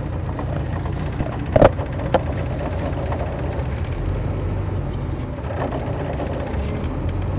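A 2002 MCI D4000 coach's Detroit Diesel Series 60 engine running with a steady low rumble, heard from on board the bus, with two sharp knocks or rattles in the cabin about a second and a half and two seconds in.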